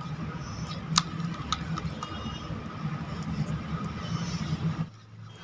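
A spatula stirring a thick rabdi and custard-apple pulp mixture in a stainless steel bowl: soft scraping and squishing with a sharp tap against the bowl about a second in, over a steady low hum that stops shortly before the end.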